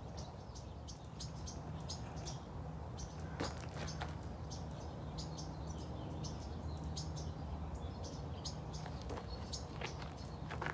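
Small birds chirping in short, irregular bursts over a steady low hum, with a few faint clicks.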